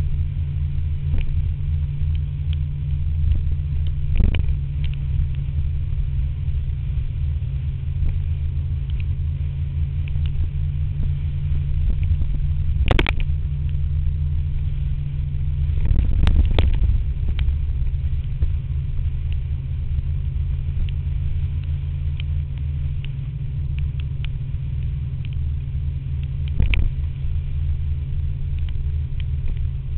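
Steady low rumble of a scooter under way, with a few sharp knocks, the loudest about thirteen and sixteen seconds in.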